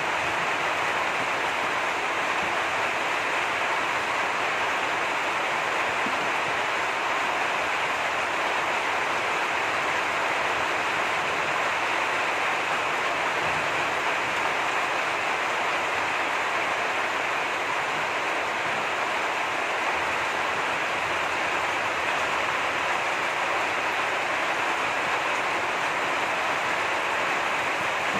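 Heavy rain falling, a steady even hiss with no breaks.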